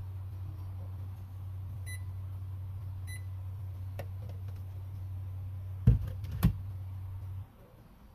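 Electric cooktop running with a steady low hum, and its control panel beeps twice, about two and three seconds in. Two sharp knocks come near the end, and the hum cuts off just after them.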